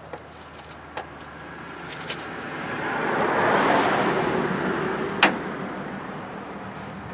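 A vehicle passing by: its noise swells to a peak in the middle and fades away. A few sharp clicks sound over it, the loudest about five seconds in.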